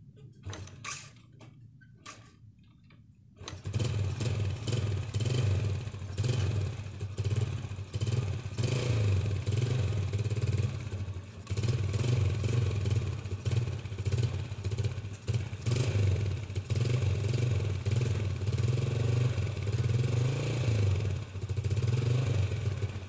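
Small underbone motorcycle being kick-started: a couple of knocks from the kick lever, then the engine catches about three and a half seconds in and runs at idle, its revs rising and falling.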